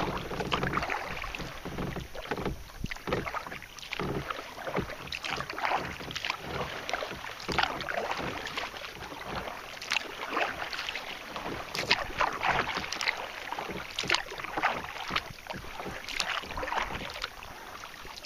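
Kayak paddle strokes in calm river water: irregular splashes and drips from the paddle blades, over a steady wash of moving water.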